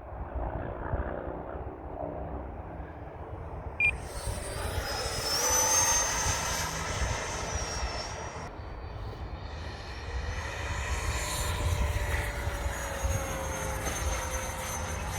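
Electric ducted-fan unit of a radio-controlled F-22 model jet whining in flight. The whine comes up about four seconds in, and its pitch rises and then slides down as the jet passes. Low wind rumble sits on the microphone underneath.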